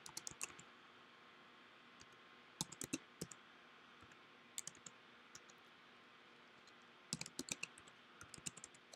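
Faint typing on a computer keyboard, in five short bursts of keystrokes separated by pauses of a second or two.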